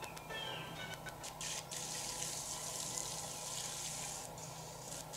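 Homemade ultra-thin foil tweeter playing music, heard as a thin, steady hiss with almost no bass, over a low steady hum.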